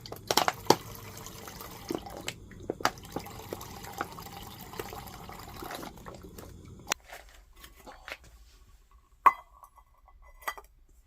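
Rice and noodles sizzling and steaming in a hot pan with a little water, with clicks and scrapes of a utensil stirring them. The sizzle cuts off abruptly about seven seconds in, leaving a few light clicks and a sharp knock near the end.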